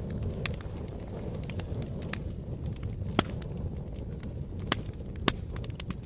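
Wood fire burning: a steady low rush of flame with scattered sharp crackles and pops, three of them louder in the second half.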